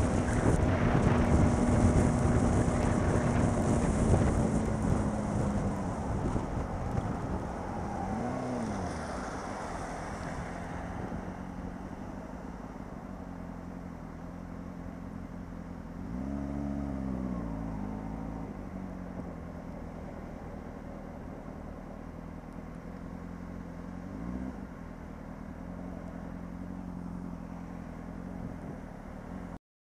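Honda CBR600RR's inline-four engine and heavy wind rush on the microphone as the bike slows from highway speed. The wind fades over the first ten seconds or so. The engine revs briefly up and down three times, the longest about halfway through, between stretches of low steady running, and the sound cuts off just before the end.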